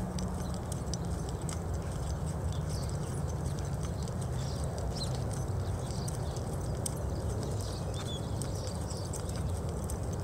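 Hoofbeats of a ridden horse moving on soft arena dirt, faint scattered footfalls over a steady low rumbling noise.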